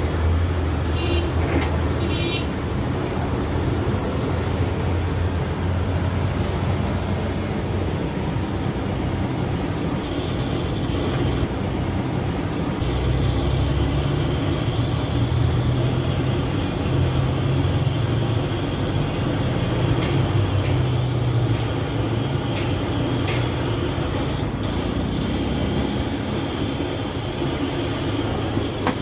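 An engine running steadily with a low drone, with a few short clicks about a second in and again about twenty seconds in.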